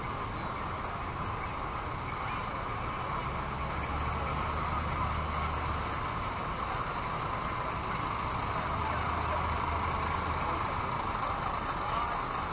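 Fire trucks rolling slowly past with their engines running. A low engine rumble swells twice as a heavy fire engine draws near.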